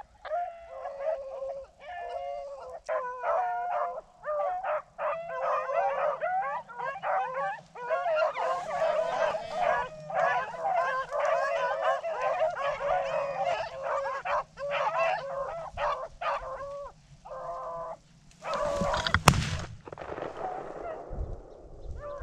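A pack of rabbit hounds in full cry on a running rabbit: many dogs baying and yelping over one another. About 19 seconds in, a brief rush of noise with a single sharp crack.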